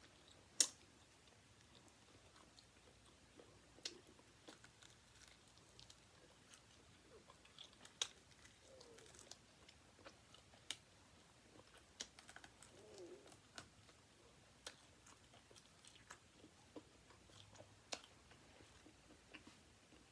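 Faint close-up chewing and biting on chicken wings, with scattered sharp crunchy clicks, the loudest about half a second in.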